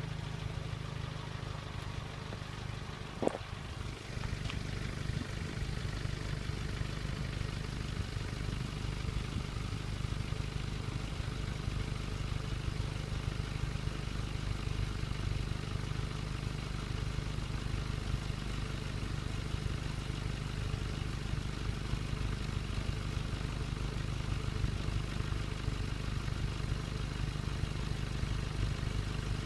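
Renault Clio 1.2 16v four-cylinder petrol engine idling steadily, without revving. There is a short sharp click about three seconds in. The owner reports that this engine judders, loses power and makes a misfiring sound when revved.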